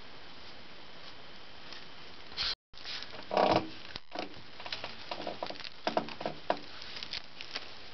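Low steady hiss, then after a sudden break a run of irregular light knocks, taps and rustles, loudest just after the break: hands handling a PVC drain pipe close to the camera.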